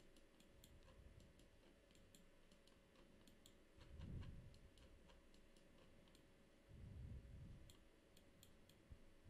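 Near silence with faint, irregular computer-mouse clicks as the 3D view is orbited, and a soft low rumble about four seconds in and again around seven seconds.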